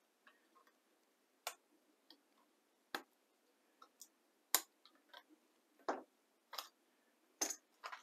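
Scattered faint small clicks, about ten over several seconds: a Dell Latitude 5420's SO-DIMM RAM modules being unclipped from their slots by hand and set down.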